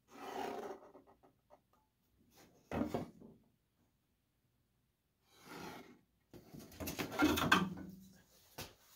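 Scattered handling sounds of a steel square, a marker and a thin plywood template being worked and moved: brief scrapes and knocks with quiet gaps between. The longest and loudest scraping comes in the last couple of seconds as the template is lifted off the wooden fuselage frame.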